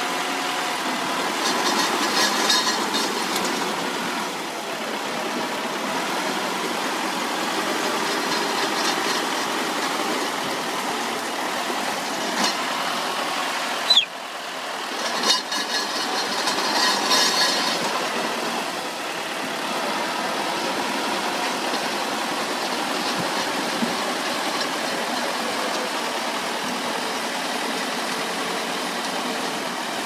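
Heavy equipment engine running steadily under work, with an abrupt break in the sound about halfway through.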